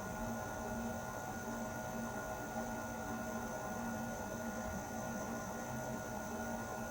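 Air conditioner running steadily: an even hum and airflow hiss with a few thin, constant whining tones over it.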